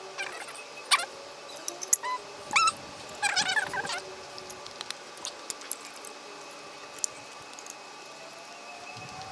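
A few sharp clicks and clinks, with short squeaky cries about two and a half and three and a half seconds in.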